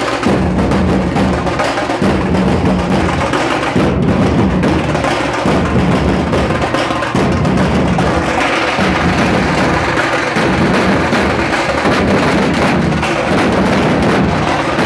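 Dhol-tasha troupe playing a loud, continuous rhythm: many large barrel dhol drums beaten together with sticks, with tasha drums over them.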